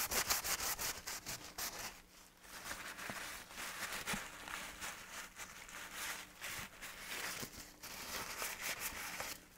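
Cloth rubbing across the inside of a gauge cluster's clear cover, wiping off dust: irregular scrubbing strokes, quick and close together for the first couple of seconds, then slower and more spread out.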